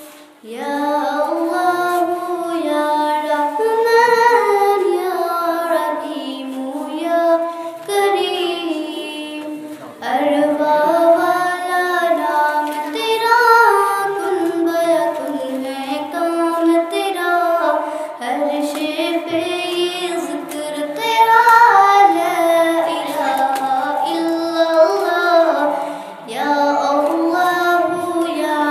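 A young girl singing an Urdu devotional ghazal solo and unaccompanied into a microphone. She sings long ornamented melodic phrases separated by short pauses.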